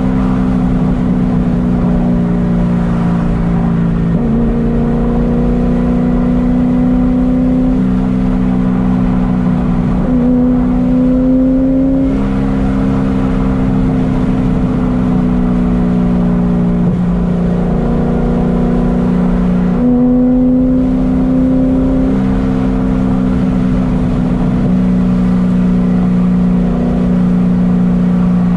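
Modified 2006 Corvette Z06's 7.0-litre LS7 V8 running at road speed, heard from inside the cabin. Its pitch holds steady and then shifts up or down in steps every few seconds.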